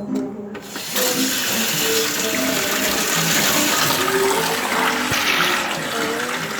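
Water running from a tap into a plugged sink, filling it: a steady rush that starts about a second in.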